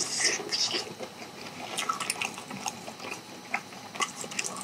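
Close-miked wet, sticky eating sounds of sauce-coated charcoal-grilled chicken: a louder burst as a piece goes into the mouth at the start, then scattered smacks of chewing.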